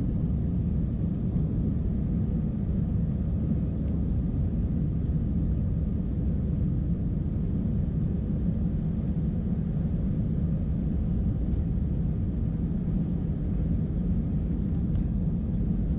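Steady low rumble of an Airbus A320-214's CFM56 engines and airflow heard inside the passenger cabin, the jet climbing out after take-off.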